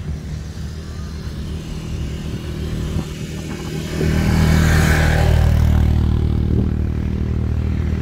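Quad bike (ATV) engine running as it drives along the sand toward the listener, growing clearly louder about halfway through.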